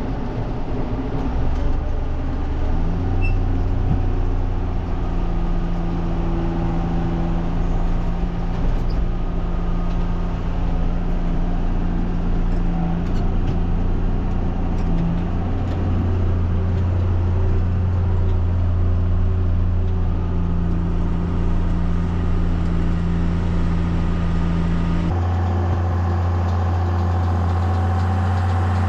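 Tractor engine running steadily with a deep, even hum while pulling a hay baler. The sound changes abruptly about 25 seconds in, to a similar steady engine note.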